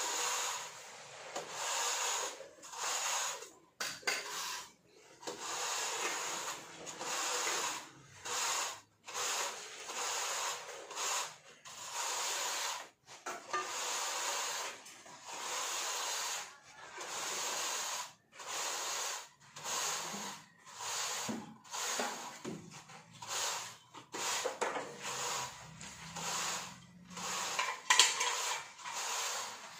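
A long straightedge being worked back and forth across a wet sand-and-cement mortar floor bed, levelling the screed. It makes a gritty scraping in repeated strokes, about one a second with short pauses between, and one sharper, louder scrape near the end.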